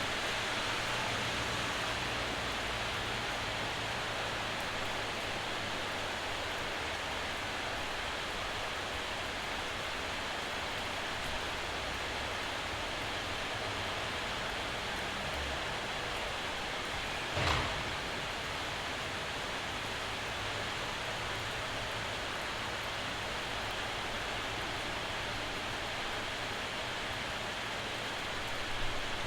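Steady hiss of a rain shower, with one short knock about two-thirds of the way through.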